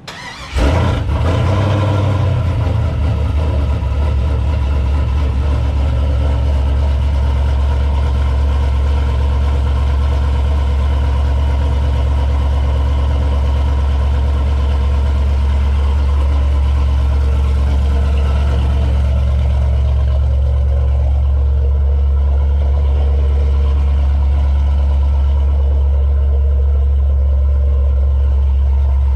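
LS V8 engine of a 1989 Chevrolet Caprice on a cold start: it cranks briefly, catches about half a second in, and settles into a loud, steady idle.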